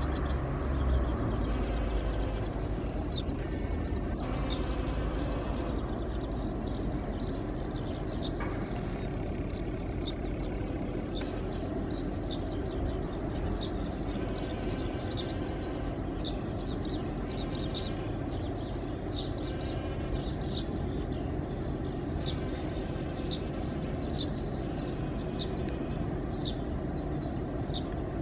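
Outdoor ambience: a steady low rumble, with many short, high chirps of small birds repeating throughout.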